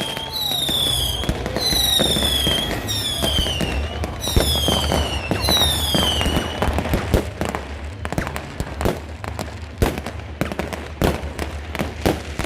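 Fireworks going off. First comes a run of whistling fireworks, each whistle falling in pitch, about one a second. Then, from about seven seconds in, a rapid series of sharp bangs and cracks, over a low rumble.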